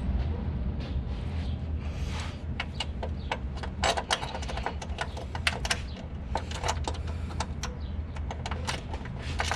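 Irregular small metallic clicks and clinks as a hood strut bracket and its serrated washer are worked into place under a hole in the engine bay, over a steady low background rumble.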